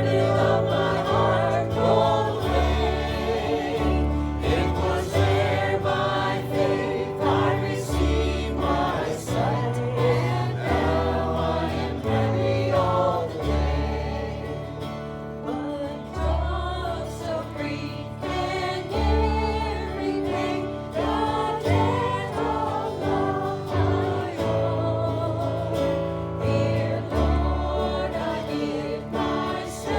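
A group of voices singing a gospel hymn with instrumental accompaniment and a steady bass line.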